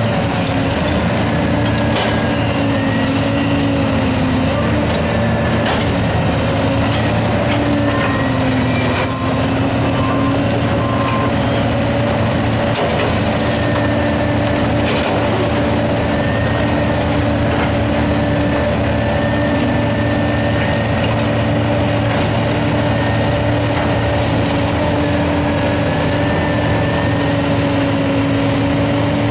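John Deere 450D tracked excavator's diesel engine running steadily under working load, with the hydraulics whining at a few slightly wavering pitches. Occasional knocks and clatter come from demolition debris as the bucket digs into the pile.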